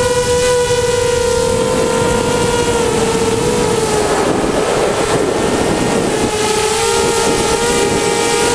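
Storm Racing Drone SRD250 V3 quadcopter's brushless motors and propellers whining steadily in flight, heard from the camera mounted on the drone, with rushing air noise. Around the middle the pitch drops and is swamped by the rush of air, then the whine comes back and climbs again near the end as the throttle changes.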